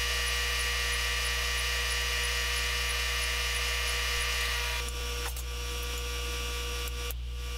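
Induction heater running steadily with a bar of steel in its coil: a steady electrical hum with a high whine over it. About five seconds in, the sound steps down to a quieter hum with a few faint clicks.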